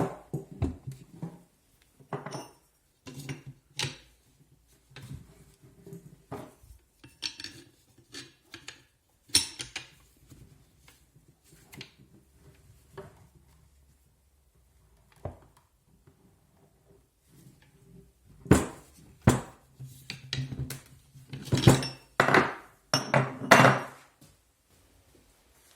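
Irregular metallic clinks and knocks of metal parts and hand tools being handled, sparse for a while in the middle and then coming thick and loud near the end.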